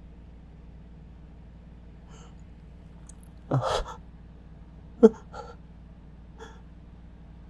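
A person's sneeze building: a loud breathy gasp about three and a half seconds in, then a sharp, short catch of breath about five seconds in, the loudest sound, followed by a couple of faint breaths.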